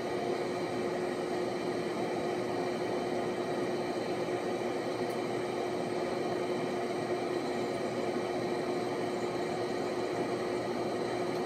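A fan running with a steady whir and a constant low hum.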